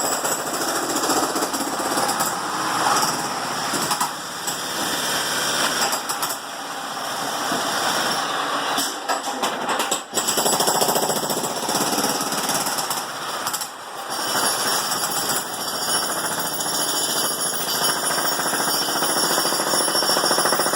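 Jackhammer running in continuous rapid hammering, with brief breaks about ten and fourteen seconds in.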